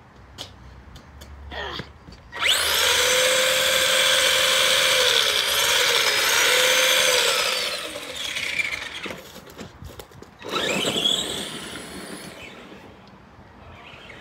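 Electric RC car's motor and drivetrain whining at full throttle, a high steady whine held for about five seconds with brief dips in pitch, then a second shorter burst that rises in pitch as it accelerates about ten seconds in.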